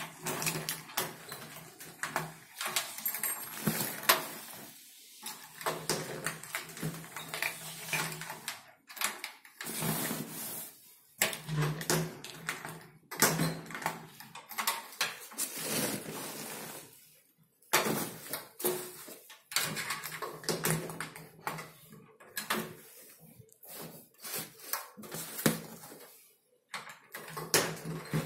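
Irregular clicks, knocks and rustling of close handling as a locker is unlocked with a key and its door is opened and closed, with a few brief quiet gaps.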